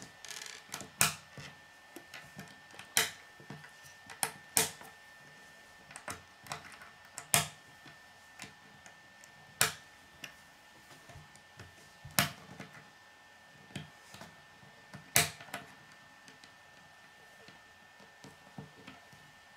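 Plastic K'nex pieces clicking as they are snapped together and handled on a wooden tabletop: irregular sharp clicks, the loudest every two to three seconds, with lighter taps between.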